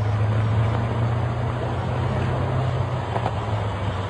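Wind blowing hard in a snowstorm: a steady rushing hiss over a strong low rumble.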